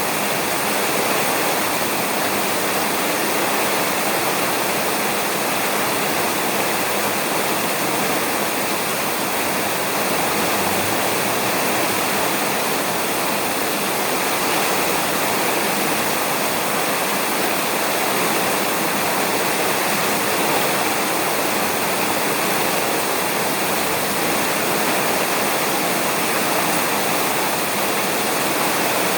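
Rain falling steadily on a roof, an even, unbroken hiss with no thunder.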